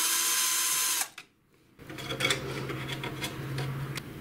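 Electric screwdriver whirring steadily as a screw is backed out, stopping abruptly about a second in. It is followed by quieter light clicks over a faint low hum.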